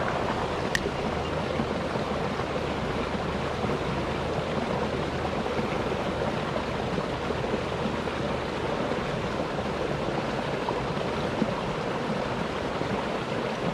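Shallow river flowing and rippling around the angler, a steady rush of water. A single sharp click sounds about a second in.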